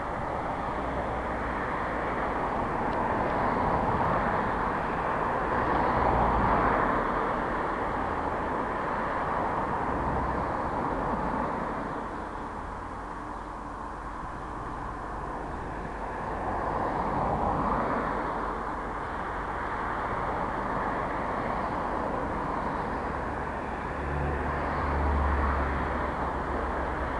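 Approaching KiwiRail DC-class diesel-electric locomotive heard from a distance: a low engine drone under a steady wash of outdoor noise that swells and eases, with the drone growing stronger near the end.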